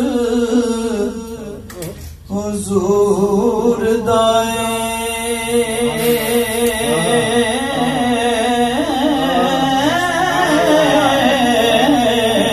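A man singing a naat, an Urdu devotional poem in praise of the Prophet, into a handheld microphone, drawing out long ornamented notes that waver and glide in pitch. A steady low held tone sounds under his voice, broken only briefly about two seconds in.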